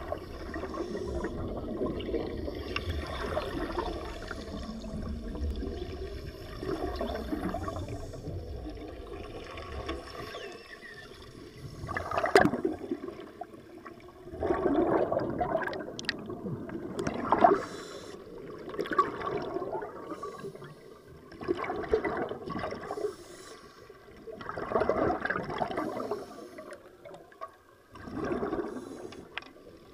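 Underwater cutting torch burning with a steady bubbling rush and a low rumble for about the first ten seconds. After that, the diver's exhaled breath leaves the helmet in bursts of bubbles every two to three seconds.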